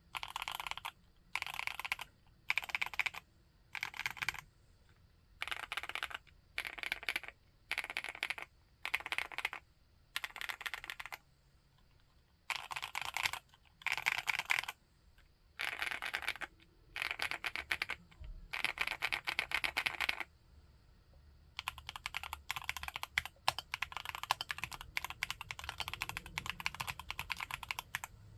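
Typing on a 75% mechanical keyboard: short bursts of rapid keystrokes separated by brief pauses, then steady continuous typing from about two thirds of the way in.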